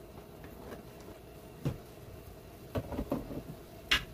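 Mung bean stew simmering in a wok, coming up to the boil: a few sharp bubbling pops, the loudest near the end, over a faint steady hum.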